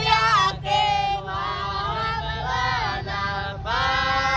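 Voices singing a sholawat, an Islamic devotional song, in long drawn-out notes that waver and bend, phrase after phrase, over a low rumble.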